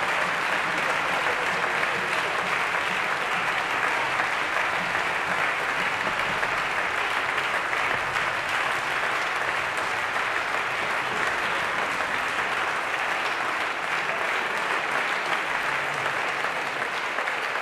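Audience applauding: dense, even clapping at a steady level.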